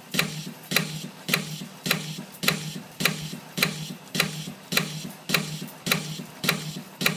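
AIM 1500 CNC piston ring coiling machine running, coiling wire into rings. It makes a sharp metallic click a little under twice a second, each followed by a short rattle, over a steady low hum.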